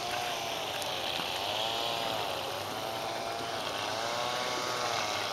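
A motor's whine whose pitch keeps rising and falling, about once a second, over a faint steady hiss.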